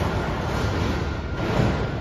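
Rubber-tyred Paris Métro line 14 train running along the platform: a steady rumble with a faint, steady high whine over it.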